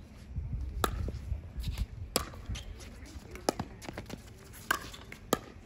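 Pickleball rally: sharp pops of the hard plastic ball struck by paddles and bouncing on the court, about five loud ones roughly a second apart with lighter taps between.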